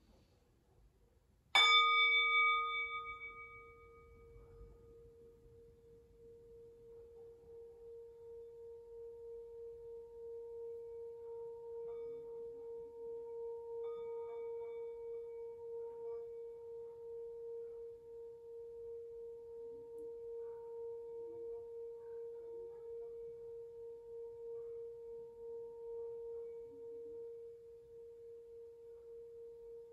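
A metal singing bowl for the crown chakra is struck once with a mallet about a second and a half in, ringing with several overtones that soon fade. The mallet is then rubbed around the rim, so one steady tone swells and sings on with a slow, even wavering.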